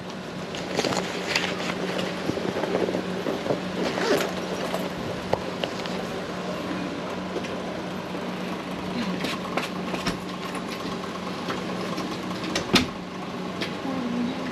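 A steady low mechanical hum, with scattered light clicks and knocks and one sharper click near the end.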